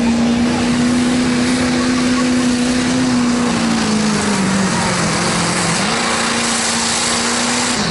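Chevrolet Silverado diesel pickup engine running flat out under heavy load as it drags a weight-transfer pulling sled, loud and steady. Its pitch sags about three and a half seconds in and climbs back near six seconds.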